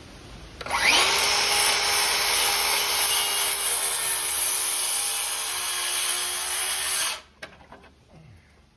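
Electric power tool motor spinning up with a quick rising whine, running at steady speed for about six seconds, then stopping abruptly.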